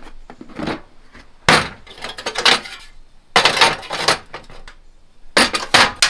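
Clattering and scraping handling noises in about five short bursts as a Milestone portable gas cartridge stove is set up and lit.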